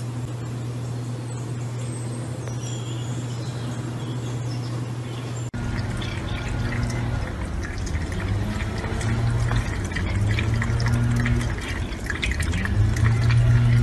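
Tap water running from a kitchen faucet and splashing into a stainless-steel sink, starting suddenly about five and a half seconds in. Before that, a quieter steady low hum with a few faint high chirps.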